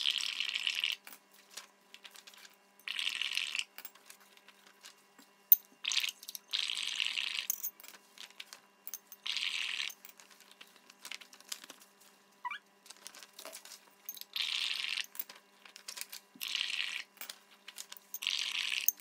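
Blowing through a drinking straw into glasses of soapy, food-coloured water, the water bubbling in bursts of about a second, about seven times. Small clicks and taps between the bursts.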